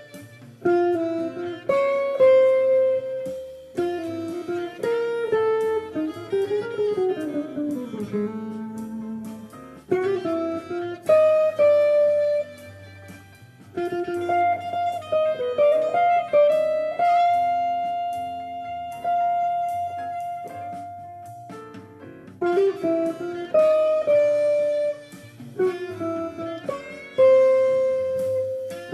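Jazz guitar playing: plucked chords and single-note lines, with a falling run about a third of the way in and one long note held for several seconds past the middle.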